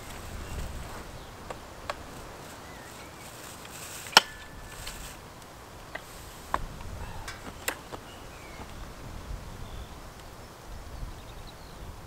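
Scattered sharp clicks and knocks from handling a Husqvarna 535LK combi tool's shaft and power-brush attachment, with the engine off; the loudest knock comes about four seconds in.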